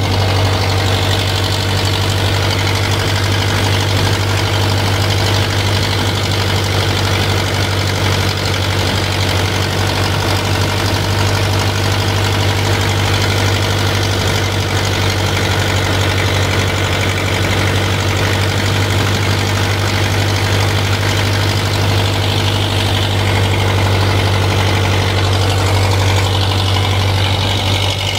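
Fishing boat's engine running steadily at idle, a constant low hum with an even mechanical drone above it.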